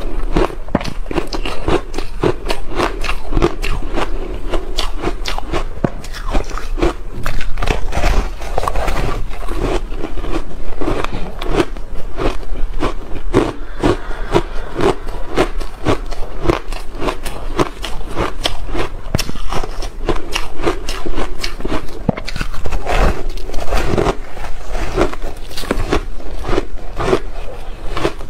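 Slushy ice coated in matcha powder being bitten and chewed, with rapid, closely spaced crunches throughout over a low steady hum.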